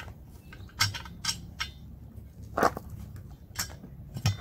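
Hands working a TPMS sensor free from inside a broken-down tire on a steel wheel: scattered clicks and knocks of rubber and metal, with about five sharper ones standing out.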